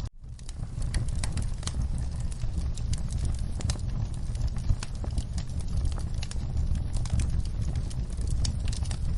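Wood fire crackling in a fireplace, with irregular sharp pops and snaps over a steady low rumble, mixed with rain. The sound cuts out for a split second at the very start, then resumes.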